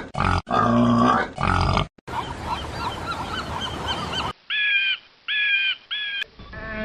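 Farm animal calls in quick succession: three short pitched calls, then a couple of seconds of many small overlapping chirps over a noisy background, then three short honking calls.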